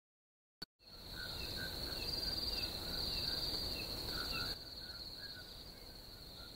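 Night ambience sound effect: crickets trilling steadily, with short chirps repeating every few tenths of a second. It starts about a second in after a brief silence and a click, and grows quieter a little past the middle.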